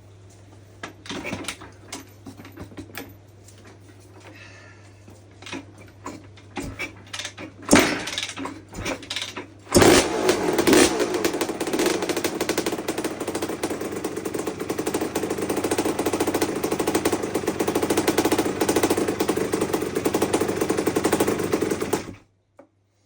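Knocks and clatter, then the 1984 Honda CR250's single-cylinder two-stroke engine starts about ten seconds in and runs steadily at a fast, rattly idle before cutting off suddenly near the end.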